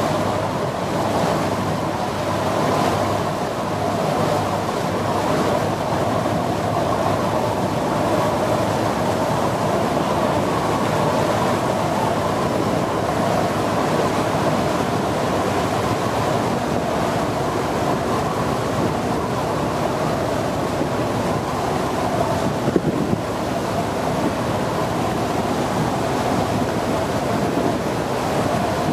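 Small boat under way: a steady rush of water along the hull and wind on the microphone, with the boat's engine running underneath. One brief knock about three-quarters of the way through.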